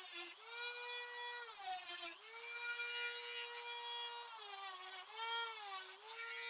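High-speed Dremel-type rotary tool running with a steady high whine that sags in pitch several times as it bogs under load, consistent with cutting the sheet-metal tabs off an old 18650 battery pack. The whine stops near the end.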